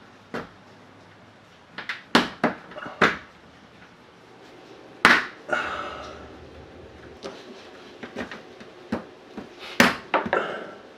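Plastic push-in retaining clips being knocked into place on an ABS front bumper lip, making a series of sharp plastic knocks and clacks. A cluster comes about two to three seconds in, the loudest knock about five seconds in, and two more near the end.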